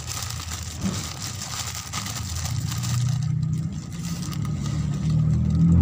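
A motor engine running steadily nearby, growing louder over the last few seconds. Beneath it, a spoon scrapes and a plastic bag rustles faintly as urea is scooped from the bag.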